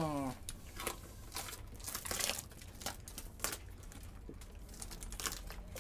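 Mould and brown paper-sack wrapping being peeled and torn off a freshly set plaster reindeer casting: irregular crackling, tearing and paper rustling with scattered sharper cracks, busiest about two seconds in.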